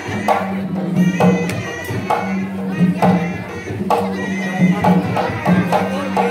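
Traditional Sundanese pencak silat accompaniment music: hand drums striking a steady rhythm of strong beats about once a second over a sustained droning tone.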